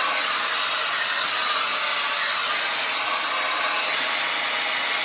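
Wavytalk 1875-watt hair dryer running, a steady, loud rush of blown air.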